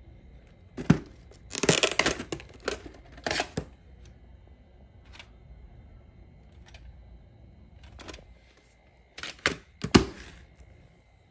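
Handling noise from a VHS cassette and its plastic clamshell case: scattered plastic clicks, snaps and short rustles as the case is opened and the tape taken out, then another cluster as the case is closed and laid down, the loudest snap near the end.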